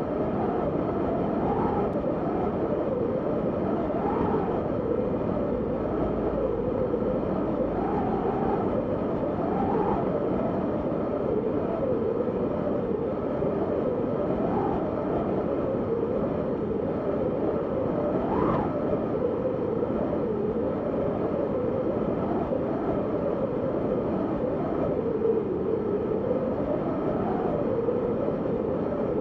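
Snowstorm wind blowing hard and steadily, a deep rush with a moaning whistle that keeps rising and falling in pitch.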